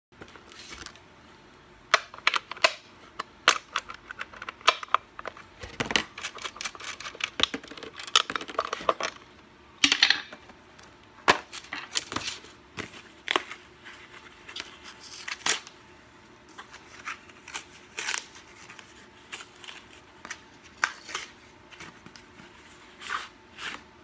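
Metal clicks, clinks and scrapes of hand work on a Stihl MS660 chainsaw: a screwdriver working at the bar, then the side cover, nuts and steel guide bar being taken off and handled. The clicks come thick and fast through the first half, then sparser.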